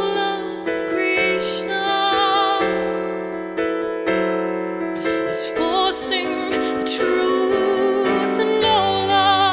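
Slow, gentle keyboard music: sustained piano or electric-piano chords changing about once a second, with a woman's voice singing long, wavering notes over them.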